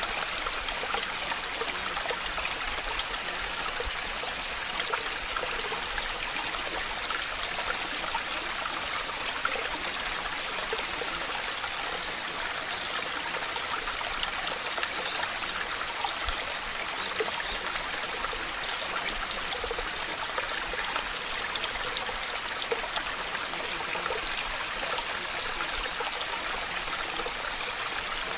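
Steady running-water ambience: an even hiss with many small drips and splashes scattered through it, unchanging in level.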